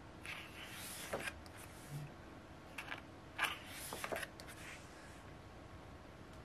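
Paper pages of an album photobook being turned and handled, in two short rustles: one about a second in and one about three and a half seconds in.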